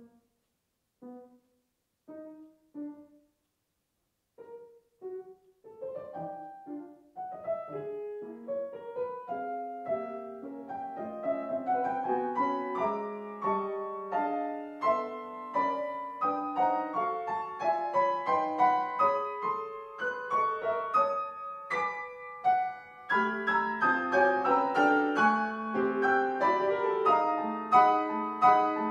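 Solo grand piano playing a contemporary classical piece: a few short, separate notes at first, then from about five seconds in a busy stream of notes that grows denser and louder, with a brief break about three-quarters of the way through before it resumes louder still.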